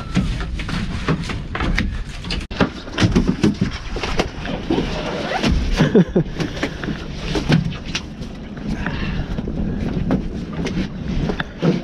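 Clunks and knocks of a freshly landed tope shark being handled on a small boat's deck, over a steady low rumble of wind, with some muffled voices.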